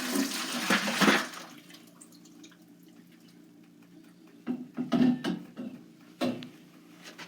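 Water splashing from the opened water filter canister for about a second and a half at the start, then a few short knocks and clunks as the canister and filter are handled, over a faint steady hum.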